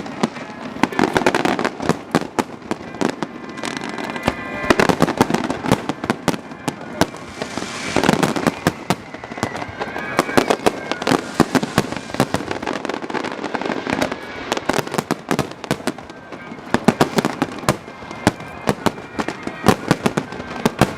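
Fireworks display: a rapid, dense run of bangs and crackles.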